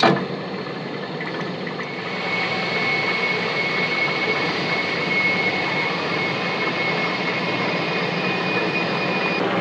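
Lathe running while a pair of knurling wheels roll a knurl onto a thin 5 mm steel pin: a steady machine noise after a short click at the start. About two seconds in it gets louder and a thin high tone sets in, holding steady until just before the end.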